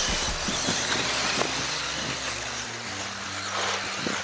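Electric RC off-road buggies racing on a dry dirt track: a steady gravelly hiss of tyres and motors, with many scattered clicks and knocks from the cars.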